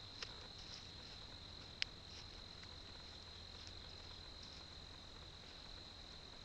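Faint, steady chorus of night insects, a continuous high trill, with one sharp click a little under two seconds in.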